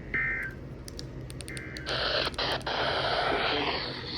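NOAA Weather Radio SAME digital data bursts: two short warbling two-tone bursts about a second and a half apart, the end-of-message code that closes the weekly test. About two seconds in, steady radio static hiss with crackles takes over.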